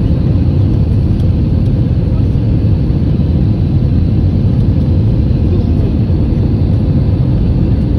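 Jet airliner's engines and airflow heard from inside the passenger cabin during the climb after takeoff: a steady, deep noise with a faint constant hum above it.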